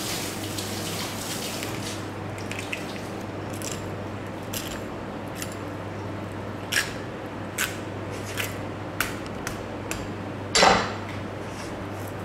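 A long knife cutting along a raw salmon fillet on a wooden board: a string of short, sharp ticks, then a louder knock a little before the end, over a steady low hum. A hiss stops about two seconds in.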